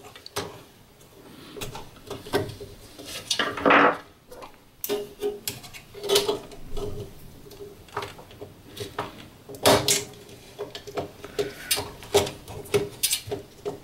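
Irregular clicks, taps and scrapes of a screwdriver and wire against small circuit-breaker terminals and the metal enclosure, as a power jumper is fitted and its terminal screws are tightened.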